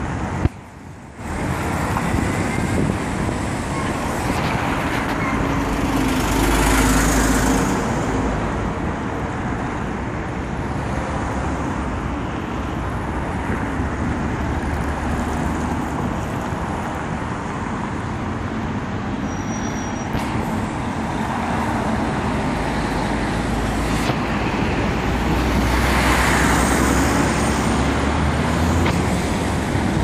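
Road traffic passing close by: a steady rush of tyres and engines, with louder swells as vehicles go past about a quarter of the way in and again near the end. The sound drops out briefly right at the start.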